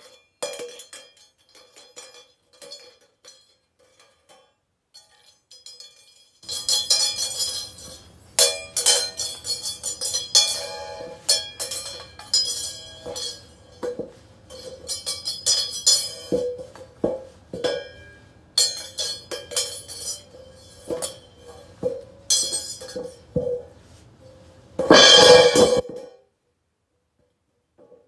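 A cymbal lying flat on a rug, struck again and again with a stick: light scattered taps at first, then from about six seconds in a dense run of strikes and rings. Near the end comes the loudest ring, which cuts off suddenly.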